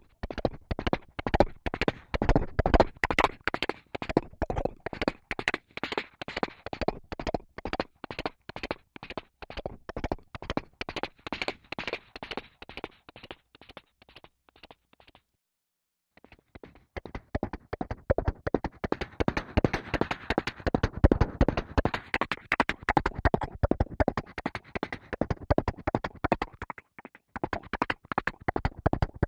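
Horse's hooves galloping: a fast, even run of hoofbeats. They fade away about halfway through, stop for about a second, then start again.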